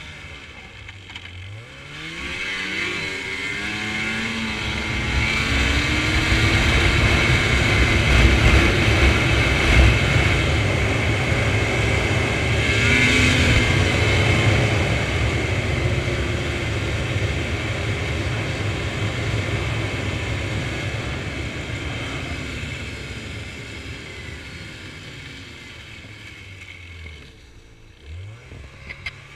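Snowmobile engine pulling away from low speed with its pitch climbing, then running loud at speed for several seconds. It eases off slowly and drops back to a low steady note near the end.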